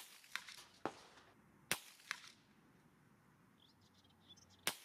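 .22 LR CCI Copper rounds fired at targets 100 m downrange: three sharp cracks two to three seconds apart, each followed within half a second by one or two fainter cracks. At that range the copper bullets are scattering widely around the target.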